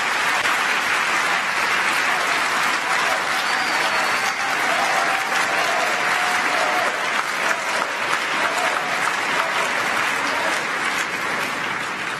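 A large audience applauding with dense, steady clapping that eases off slightly near the end.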